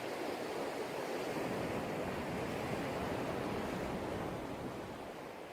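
A steady rushing noise like surf, with no tune in it, that swells for about a second, holds, then fades away near the end.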